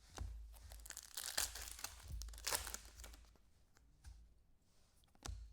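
A foil trading-card pack being torn open and its wrapper crinkled, in several rustling bursts over the first three seconds, then quieter.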